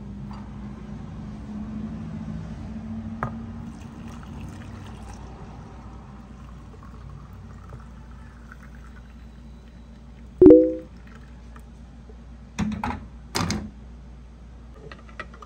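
Water poured from a small saucepan into a ceramic mug, a steady pour. About ten seconds in comes a loud clink with a short ring, then two duller knocks near the end.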